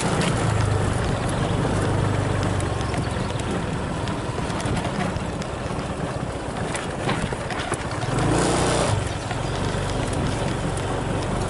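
A small vehicle engine running steadily on the move, with wind noise rushing over the microphone. The rush grows louder about eight seconds in.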